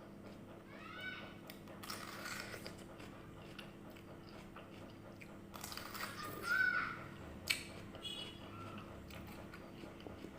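Crisp red water apple (jambu air) being bitten and chewed close to the microphone, with a crunchy bite about two seconds in and a louder one around six and a half seconds, followed by a sharp click.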